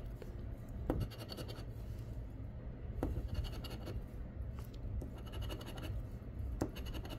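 A large coin scratching the coating off a paper scratch-off lottery ticket in short spells of strokes with pauses between them, and a few sharp clicks of the coin against the ticket.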